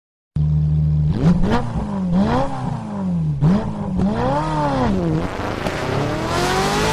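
Engine idling steadily, then revved up and down several times and finishing with a long, steadily rising rev.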